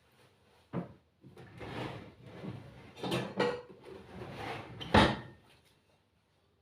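Kitchen handling noises: a sharp knock about a second in, then rustling and scraping with two louder knocks, the last about five seconds in.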